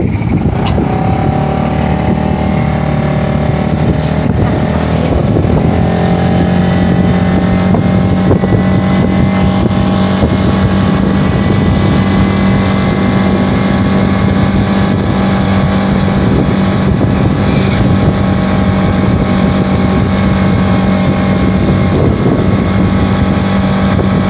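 Small motorcycle engine running at road speed, heard from on board the moving bike; its pitch rises a little about five seconds in and then holds steady.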